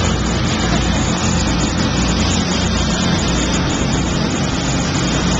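Fishing boat's engine running steadily, with a constant rushing noise over it.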